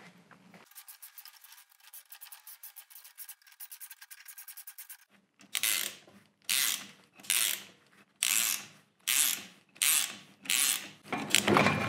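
Ratchet wrench being worked on a gear puller's forcing screw as the puller draws the lathe's clutch assembly off the spindle. First comes a faint run of rapid clicks, then from about halfway a steady series of short clicking strokes, about three every two seconds.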